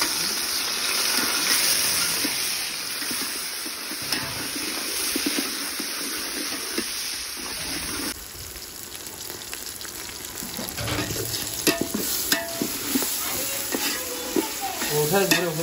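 Sliced onions, green chillies and ginger-garlic paste sizzling in hot oil in a metal pot while a spatula stirs and scrapes through them. The sizzle is quieter after about eight seconds, and later the spatula knocks against the pot a few times.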